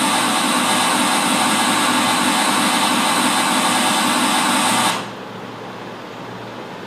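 Loud, steady hiss of static noise from a Sony LCD TV's speakers, with no signal tuned in. It cuts off suddenly about five seconds in, leaving only a quiet steady background.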